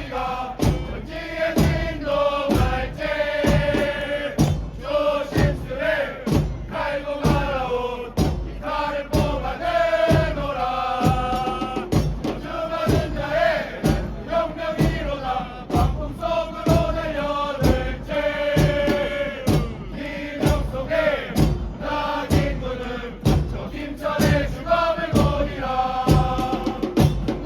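Football supporters singing a chant together in unison, backed by a steady drumbeat of about two strokes a second.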